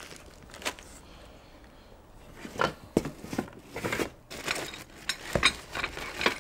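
Loose metal bolts clinking and rattling inside a plastic bag, with the bag crinkling, as boxed motor parts are handled. The clicks come in a quick irregular run starting about two and a half seconds in.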